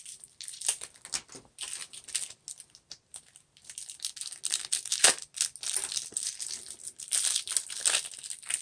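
Plastic packaging crinkling and rustling in irregular bursts as it is cut open and handled, with one sharp click about five seconds in.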